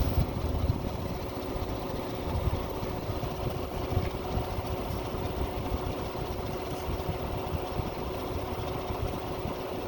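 A motor running steadily with a constant, even hum over a low rumble.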